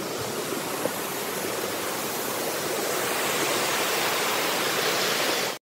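Waterfall and creek rushing: a steady, even roar of falling water that grows a little louder about halfway through.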